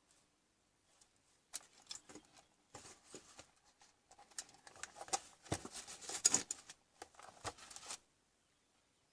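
Irregular clicks, scrapes and rustles of something being handled, starting about a second and a half in and stopping near the end, loudest toward the middle.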